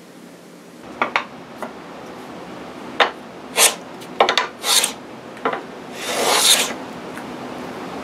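Small metal edge plane, an import copy of the Woodpeckers edge plane, pushed along the corner of a dark hardwood board and shaving it: a run of short scraping strokes starting about a second in, with one longer stroke near the end.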